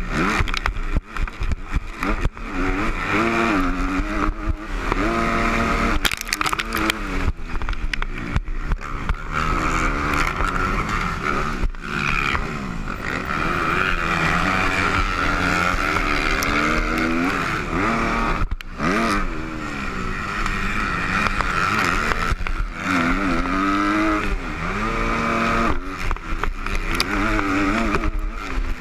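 250-class motocross bike's engine heard from the rider's helmet, revving up and falling off again and again as he accelerates, shifts and rolls off through the track. A steady rushing noise from wind on the helmet camera runs beneath it.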